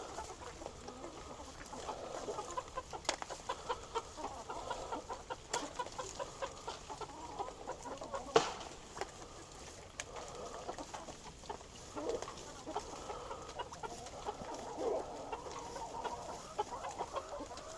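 A flock of backyard chickens clucking, many short soft calls overlapping, with a few sharp clicks; the loudest click comes about eight seconds in.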